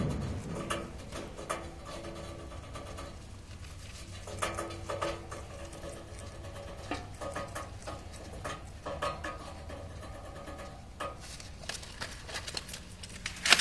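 Guinea pigs stirring in the hay of their cage: soft rustling with scattered small clicks, and a bump right at the start.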